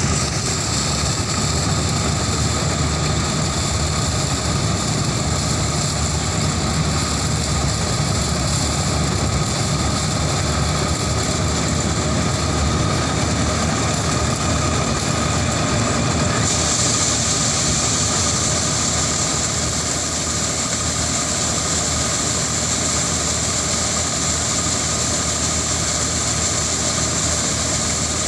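Corn harvesting machine running steadily, its engine rumble under the noise of the working machinery, with a high whine that grows stronger a little past halfway.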